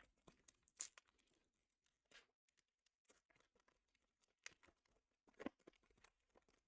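Faint tearing and crinkling of a Pokémon booster pack's foil wrapper being opened by hand: scattered short crackles, loudest just under a second in and again past the middle.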